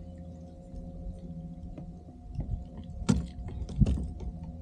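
Hard knocks and clatter of gear being handled on a fishing kayak, two sharp ones about three and four seconds in, over a steady low hum.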